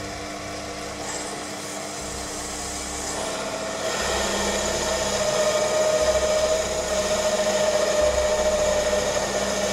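Proxxon PD 250/e mini lathe running while a parting tool cuts a silver-steel wheel off the bar. A steady whine comes in about three seconds in, and the sound grows louder about a second later.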